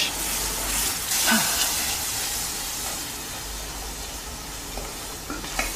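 Hot butter-and-golden-syrup toffee in a saucepan hissing and sizzling as cream is stirred into it with a wooden spoon, turning it into toffee sauce. The hiss is loudest at first and slowly dies down.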